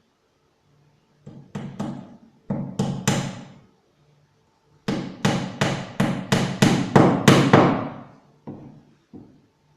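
Hammer blows, most likely driving a nail: a handful of strikes, a pause, then a quick run of about ten strikes, getting louder, and two lighter taps near the end.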